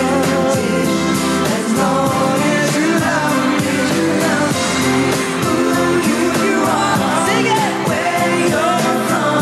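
Male pop vocal group singing over pop backing music with a steady beat.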